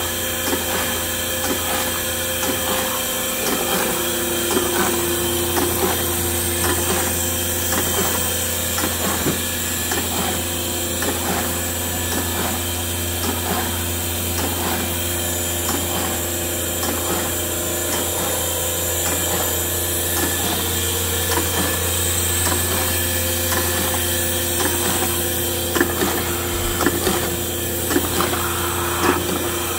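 Wahli SO paper feeder running: a steady motor hum with a regular clicking of the feed mechanism, a few louder clicks near the end.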